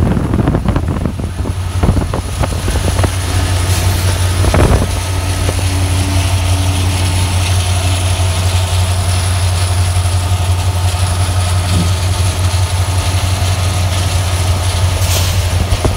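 Norfolk Southern SD70ACe diesel-electric locomotive running alongside under power, its engine drone mixed with a loud, steady low rumble of wind and road noise from a car travelling beside it.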